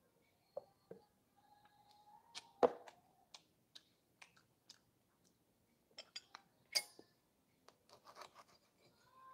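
Eating sounds at a table: a knife and fork clinking and scraping on a plate and tray, and a cup set down, as scattered clicks with sharper knocks about two and a half seconds in and near seven seconds.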